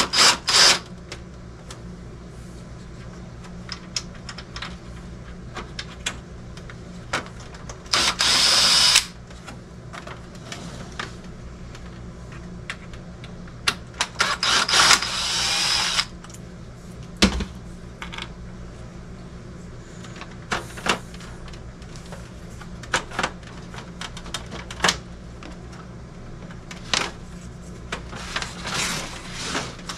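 Ryobi cordless drill/driver running briefly in reverse to back screws out of a dehumidifier's plastic housing: two quick spins at the start, one of about a second at eight seconds and one of about two seconds at fourteen. Between the runs come scattered clicks and knocks of plastic panels being handled and pried loose, over a steady low hum.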